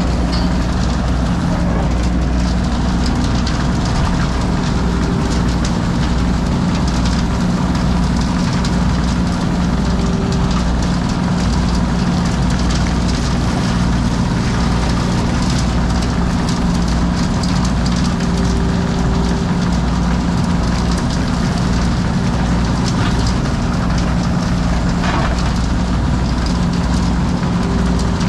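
Heavy drilling machine running steadily, a constant hum over a pulsing low rumble.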